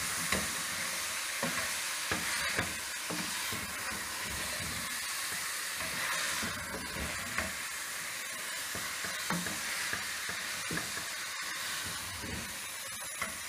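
Radish pods (mongray) and chicken mince sizzling in a pot while a wooden spoon stirs them, with scattered light scrapes and knocks against the pan.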